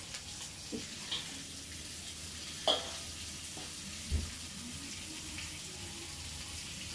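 Vegetables sizzling in a wok while a metal spatula stirs them, with a few sharp clanks of spatula on wok, the loudest about two and a half seconds in, and a dull thump about four seconds in.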